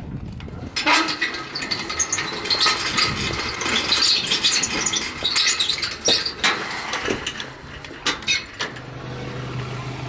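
Car engine with clattering and several sharp knocks, settling into a steady low idle near the end.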